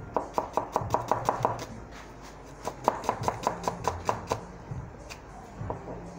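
A cleaver chopping red onion on a cutting board: two quick runs of sharp knocks, about six or seven a second, then a few slower strikes near the end.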